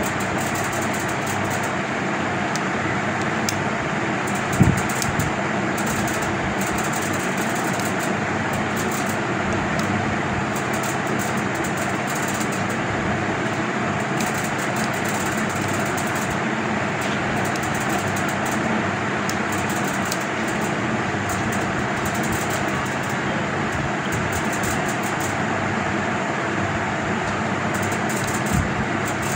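Steady whirring room noise with a low hum, like an electric fan running, and one soft knock about five seconds in.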